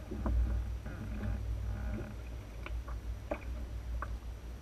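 Wind rumbling on the microphone aboard an Enterprise sailing dinghy under way, with three sharp clicks in the second half.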